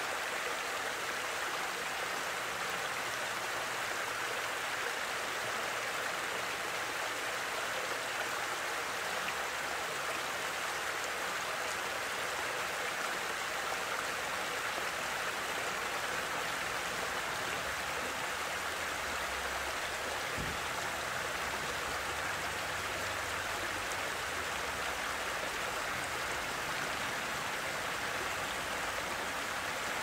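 Water running over a weir: a steady, even rush with no break.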